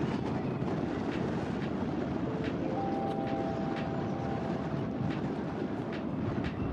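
Wind blowing against the microphone: a steady rough rushing and buffeting that holds at an even level throughout.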